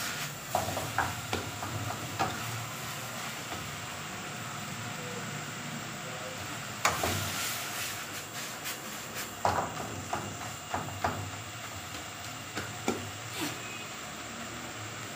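Vegetables stir-frying in a steel wok over a high gas flame: a steady hiss of sizzling and burner, with scattered metal clanks from the ladle and the tossed wok, thickest about seven seconds in and between nine and eleven seconds.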